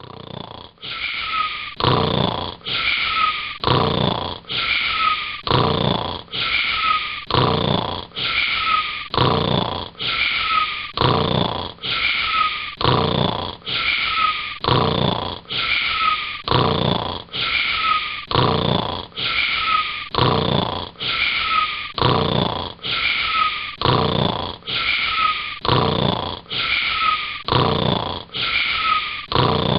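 Cartoon snoring, repeated in a strictly regular loop about once a second. Each snore carries a brief falling whistle.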